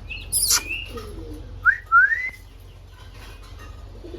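Indian ringneck parrot calling: one shrill screech that sweeps sharply downward, then two short rising whistles just under two seconds in.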